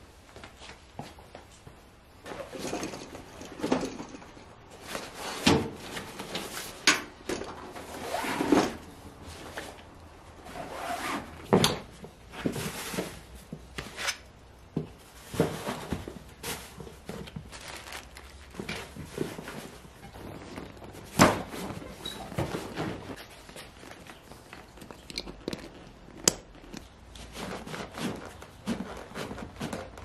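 Motorcycle luggage being packed and strapped down by hand: rustling of fabric dry bags, soft thuds as bags are set on the seat, and a few sharp clicks.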